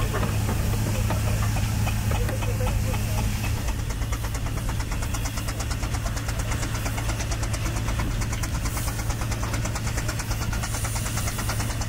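Engine running steadily with a low hum. From about four seconds in, a fast, even ticking joins it.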